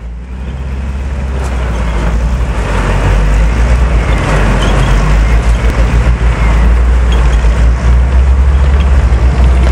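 Heavy tracked armoured vehicle running: a loud low engine rumble under a rushing roar, growing louder over the first few seconds.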